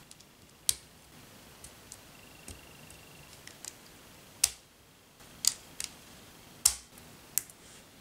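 Plastic Lego Technic parts being pressed and snapped together by hand: about six sharp clicks, two of them in quick succession, with fainter ticks from the pieces being handled in between.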